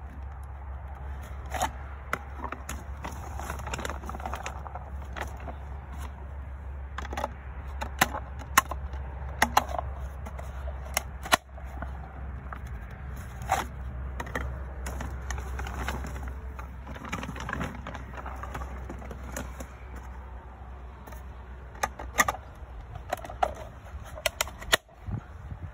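RidgeMonkey Choppa boilie chopper worked through a bucket of halved 15 mm boilies: irregular sharp clicks and knocks of the plastic tool, with the rattle and scrape of the baits against it and the bucket. A steady low rumble runs underneath.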